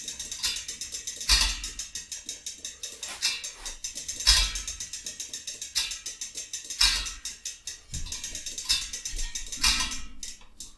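Rear bicycle hub's freewheel pawls ticking rapidly as the wheel spins freely, with louder clicks every second or so; the ticking thins out near the end as the wheel slows.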